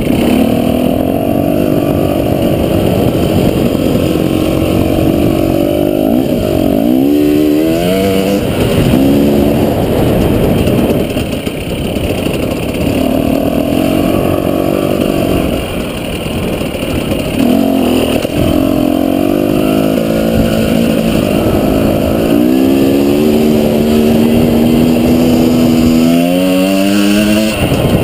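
Dirt bike engine running under throttle while riding, its pitch holding steady through stretches and climbing sharply twice as it revs up, about a quarter of the way in and near the end.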